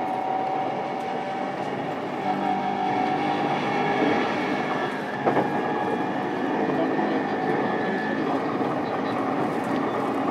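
Onboard running sound of an E233 series electric train's motor car: steady VVVF inverter and traction-motor tones over wheel-on-rail rumble as the train approaches a station stop. A single sharp click comes about five seconds in, and a high tone stops near the end.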